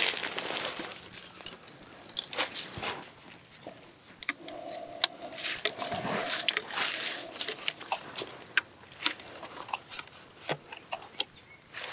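Dry leaf litter crunching and rustling under a person shifting on hands and knees, with camouflage clothing brushing, in short irregular crackles.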